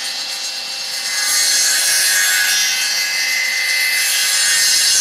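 Saw disc of a homemade copying machine, driven by a 380 V electric motor, cutting along a wooden propeller-blade blank: a steady sawing noise that gets louder about a second in.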